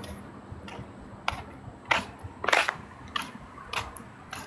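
Footsteps of someone walking: a short, sharp tap a little under twice a second, starting about a second in, over faint outdoor background noise.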